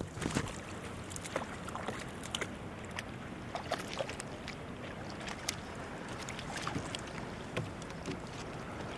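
Water lapping against a fishing kayak's hull, with scattered small clicks and knocks throughout.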